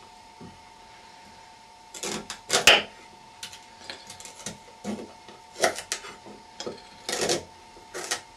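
Kitchen knife cutting through rhubarb stalks on a wooden chopping board: irregular crisp cuts and knocks of the blade on the board, loudest about two and a half seconds and seven seconds in, over a faint steady hum.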